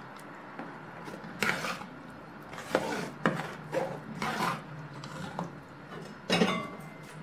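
A metal ladle scraping and knocking against a plastic strainer and inside an aluminium pot as coconut milk is worked through the strainer and stirred in. It makes about half a dozen short, irregular scrapes and knocks.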